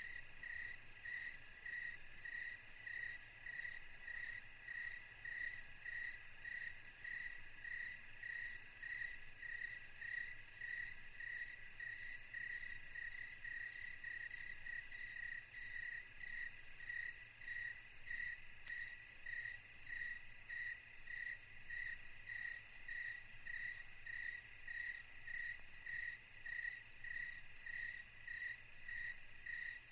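Crickets chirping in a steady, even rhythm of about one and a half chirps a second, unchanging throughout.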